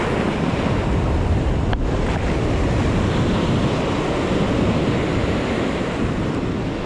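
Storm-swell surf breaking and washing on the shore, steady and loud, with wind buffeting the microphone.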